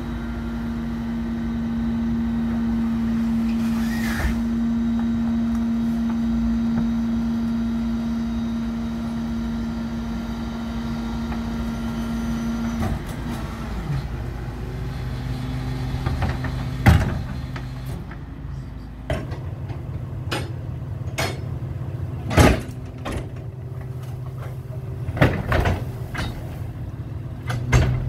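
Kenworth McNeilus rear-loader garbage truck running with its engine held at raised, steady revs to power the hydraulic cart tipper, then dropping to a lower steady run about halfway through. Several loud metal clunks and bangs follow as the trash container is tipped, shaken out and lowered.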